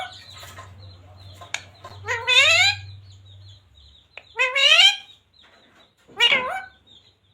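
A pet parrot calling: three short, high-pitched calls with a bending pitch, about two seconds apart.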